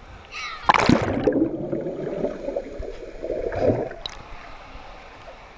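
A cannonball jump into a swimming pool: a sharp splash about a second in, followed by about three seconds of churning, gurgling water that dies away.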